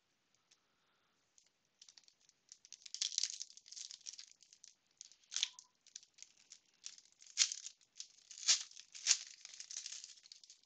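Foil trading-card pack wrapper crinkling and tearing as it is pulled open by hand, starting about two seconds in, with several sharper crackles along the way.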